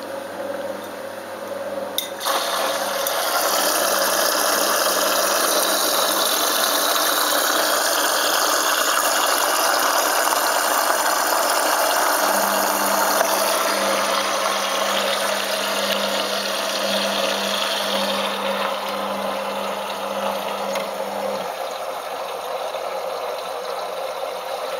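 Balay T-8295 front-loading washing machine with its water inlet valve clicking open about two seconds in, then water rushing into the drum, loud at first and easing off near the end. This is the machine filling for a rinse.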